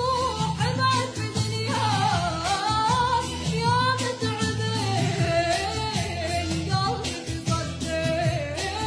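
Arabic song: a solo voice sings ornamented, wavering melodic lines over instrumental backing with a steady beat.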